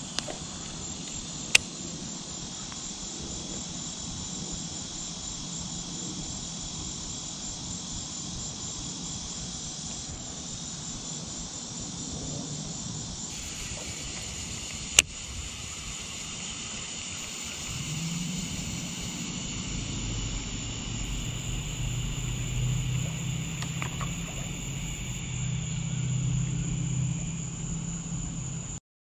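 Steady high-pitched chirring of an evening insect chorus by the water, with a couple of sharp clicks. From about two-thirds of the way in, a low drone joins and grows louder toward the end.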